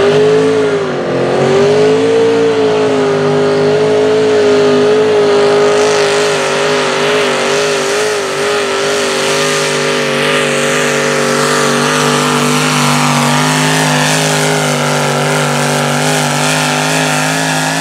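Small-block V8 engine of a mini modified pulling tractor held at full throttle under load while it drags a weight-transfer sled. The pitch stays high and steady with a slight waver.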